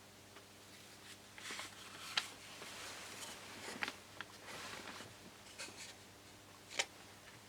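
Short, faint scraping strokes and a few sharp clicks of hand work on a balsa model rudder, in a small room.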